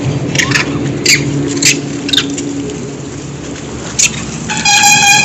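Macaques calling at a feeding: a series of short, sharp high squeaks, then near the end one clear, steady-pitched call lasting about half a second, over a steady low hum.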